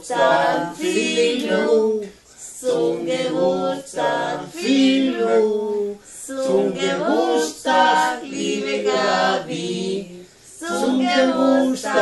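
A small group of men and women singing a birthday song together, unaccompanied, in phrases of a couple of seconds with short breaks between them.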